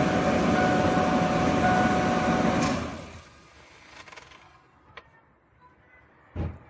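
Ford E150 V8 engine running, then shut off about three seconds in. A few faint clicks and a short thump follow near the end.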